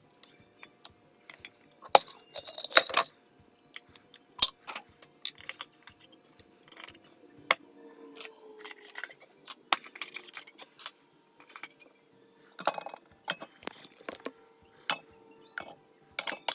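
Glass canning jars clinking and knocking together as they are handled, in a run of sharp clicks and short clatters.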